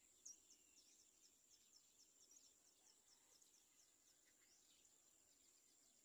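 Faint outdoor ambience: a steady high-pitched insect whine, and a quick run of short, high, falling chirps, about four a second, that stops a little over four seconds in.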